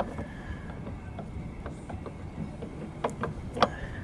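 Aprilia RS 125 clutch parts being handled during reassembly: a few sharp clicks, loudest about three and a half seconds in, over a low, even rumble.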